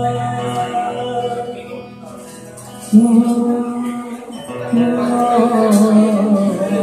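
Male singer performing a Punjabi folk song live with acoustic guitar, singing long held notes that waver and bend. A new phrase comes in loudly about three seconds in, after a brief softer stretch.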